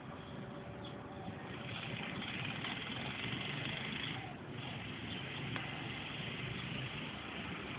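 Steady outdoor background noise, an even low rumble and hiss with no distinct events.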